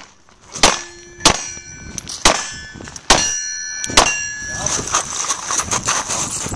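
A string of 9mm Glock 34 pistol shots, five sharp cracks in about four seconds, with steel plate targets clanging and ringing on after the hits.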